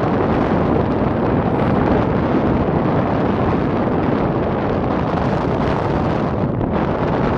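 Wind blowing hard across the microphone over open sea: a steady, loud rushing rumble with no clear tones.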